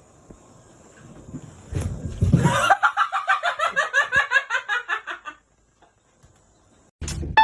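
A low thump and rustle, then a person laughing hard in a fast run of short "ha" sounds for about three seconds.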